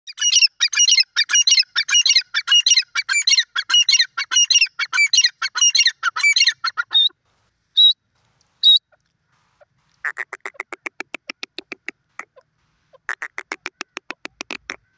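Grey francolin calling: a fast run of loud repeated notes for about seven seconds, then two single high notes. After a short pause come two runs of rapid, clicking notes.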